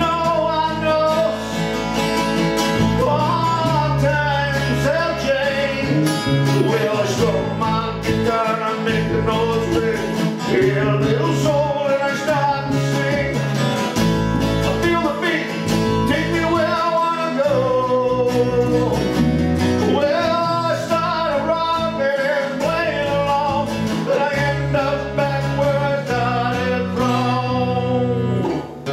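An acoustic band playing a song: strummed acoustic guitar under a singing voice, at a steady, full level.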